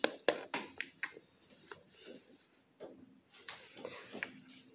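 Quick, light clicks and taps, about four a second during the first second, thinning out into scattered faint ticks and rustles: hands handling objects close to the microphone.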